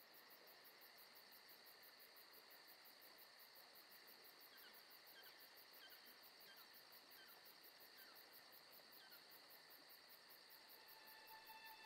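Faint insects chirring in a fast, even pulse, with a run of short, faint falling chirps, about two a second, through the middle.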